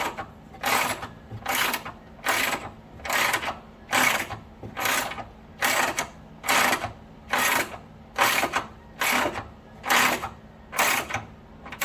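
Ratchet wrench clicking in even strokes, about one a second, as it turns the bolt of an improvised bushing puller to press a polyurethane bushing into place.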